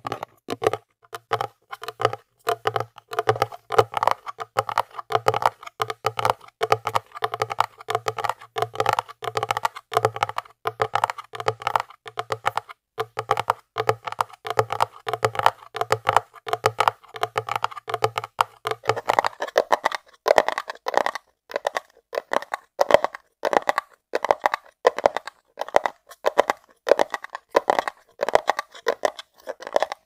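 Fingertips and nails tapping rapidly on a hard glasses case, a fast, uneven run of light, sharp taps that continues without a break.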